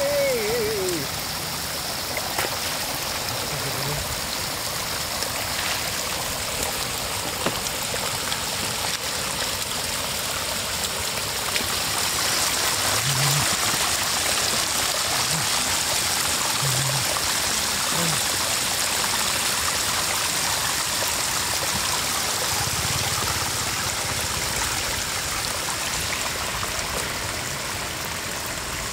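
Floodwater spilling over the broken edge of a road and trickling down the cut bank into the muddy runoff: a steady flow of running water.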